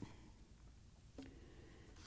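Near silence: room tone, with one faint short sound a little over a second in.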